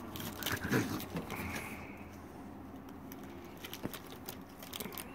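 Raccoons feeding at close range on a wooden deck: scattered small clicks and scratches of claws on the boards and of grapes being handled and chewed.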